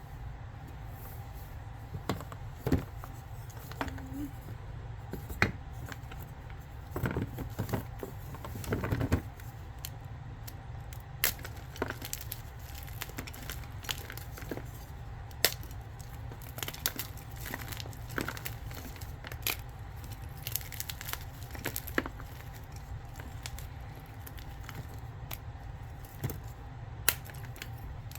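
Blocks of gym chalk being crushed: scattered sharp crunches and crackles, with denser runs of crunching about seven and nine seconds in, over a steady low hum.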